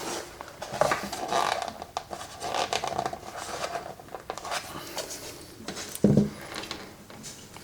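Irregular rubbing and scraping with light clicks as a clock movement stuck to the clock with double-sided tape is worked at by hand to free it.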